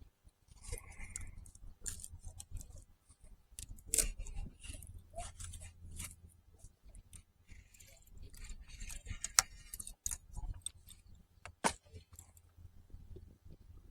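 Scattered light clicks and short jingling rattles, as of small hard objects being handled, over a steady low rumble.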